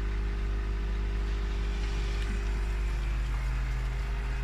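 Steady low electric hum of a pond pump set-up. About three seconds in its tone changes as the pump is switched back on at its controller.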